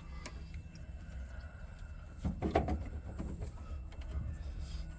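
Metal throttle linkage parts on a bus being worked by hand while being lined up, giving a short run of clicks and scraping about two seconds in, over a low steady hum.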